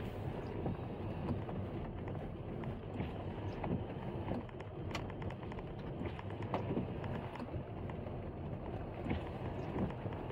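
Car driving slowly on wet, rough asphalt, heard from inside the cabin: steady tyre and road noise with scattered small knocks and clicks from the uneven surface.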